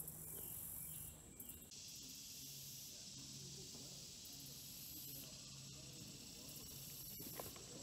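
Faint, steady high-pitched drone of insects, growing fuller about two seconds in, with a couple of soft clicks near the end.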